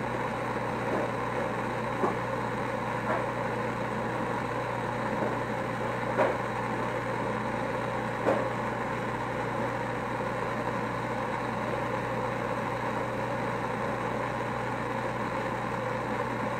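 Brass hand torch on a yellow gas cylinder burning with a steady hiss of flame, with a few faint ticks now and then as glass is worked in it.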